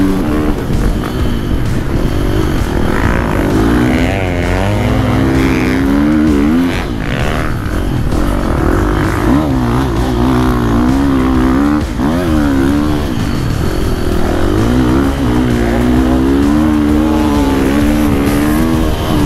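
2023 KTM 450 SX-F four-stroke single-cylinder motocross engine being ridden through soft sand, its revs rising and falling over and over with the throttle.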